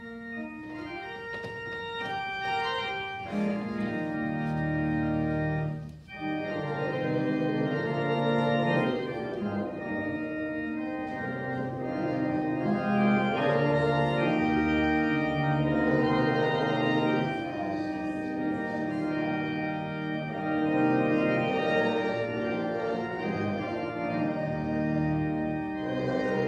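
Church organ playing held chords that move from one to the next, starting at once out of quiet, with a brief break about six seconds in.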